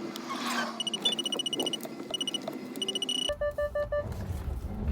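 Car parking-sensor beeping while parking: quick runs of high-pitched beeps, then about five lower, slower beeps about three seconds in.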